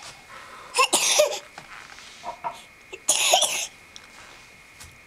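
A person coughing in two short fits, about a second in and about three seconds in.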